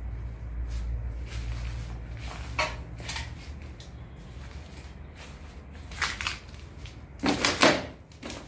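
Footsteps scuffing and crunching on a rubble-strewn concrete floor, a few scattered steps with the loudest crunches near the end, over a low steady rumble.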